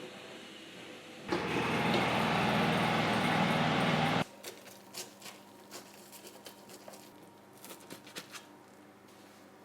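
A small electric motor running steadily for about three seconds, starting and stopping abruptly, followed by scattered light clicks and taps.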